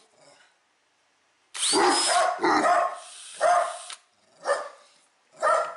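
A Snap-on 18-volt cordless drill briefly run, its motor whirring up, about a second and a half in, while dogs bark. Short single barks follow about once a second.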